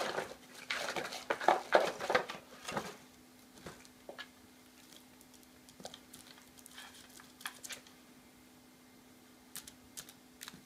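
Egyptian Mau cat scrabbling with its paw inside a small cardboard box for about three seconds, a dense run of scratching and rustling against the cardboard. After that, scattered light clicks and taps as it bats a wrapped candy about, with a short cluster near the end.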